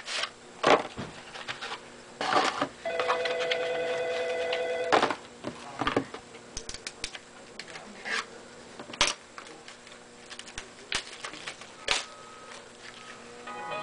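Hockey card pack wrapper and cards being handled, with irregular crinkles and clicks. An electronic ringing tone, like a telephone ringing, sounds for about two seconds a few seconds in, and music with stepping notes begins near the end.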